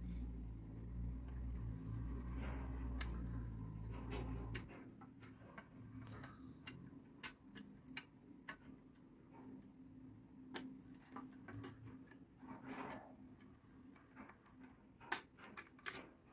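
Lock pick working the pins of a cross-keyway garage lock cylinder: irregular small metallic clicks and ticks as pins are probed and set, with a cluster of louder clicks near the end. A low rumble sits under the first few seconds.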